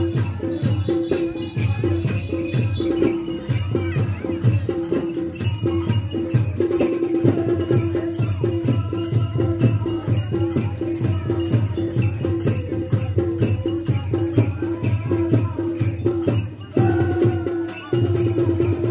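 Live folk music: drums beaten in a fast, even rhythm with jingling rattles, over a held tone that sounds again and again. It drops briefly near the end.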